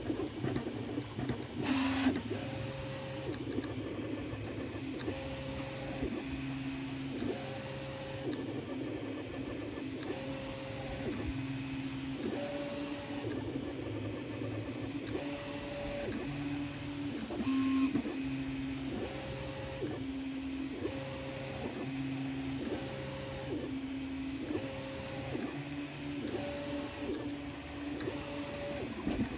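Original Prusa Mini 3D printer mid-print: its stepper motors whine as the print head traces the part, the tone switching back and forth between a lower and a higher pitch every second or so, over a steady hiss.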